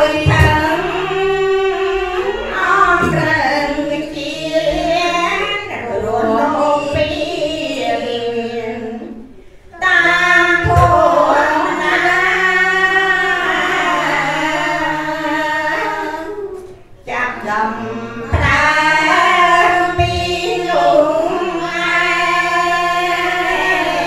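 Khmer Buddhist laywomen chanting together in unison, led by a woman's voice through a microphone, in long melodic phrases with short pauses for breath about ten and seventeen seconds in.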